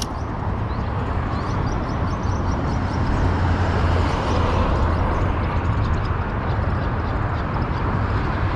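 Steady rumble of highway traffic, swelling about three to five seconds in as a vehicle passes.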